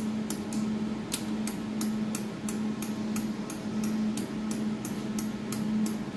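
Jewelry laser welding machine running with a steady low hum and an even, sharp clicking about three times a second.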